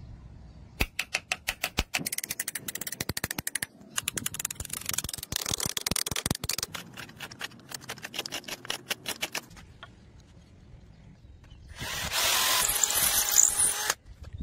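Rapid, repeated taps of a steel chisel chopping a channel into a wooden plank. Near the end a power tool runs loudly for about two seconds.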